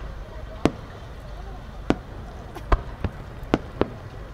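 Aerial firework shells going off: about six sharp bangs at irregular intervals over a low steady rumble.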